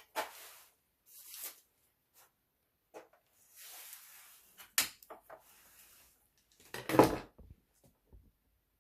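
Clicks and knocks from handling the sewing machine's casing parts and tools during disassembly. A short scrape comes about three and a half seconds in, and the loudest clatter about seven seconds in.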